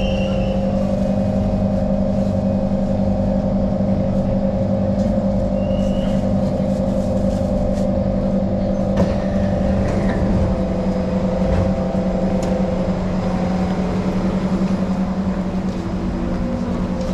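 Steady electrical hum of a Singapore MRT train, heard from inside the carriage by the doors: several steady humming tones over a low rumble, with a single click about nine seconds in.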